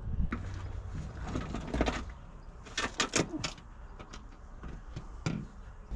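Scattered clicks, knocks and scrapes from tools and parts being handled during an oil change, with a cluster about three seconds in and another about five seconds in, over a low steady hum.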